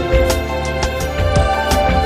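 Background music: soft instrumental with held notes over a light, steady beat.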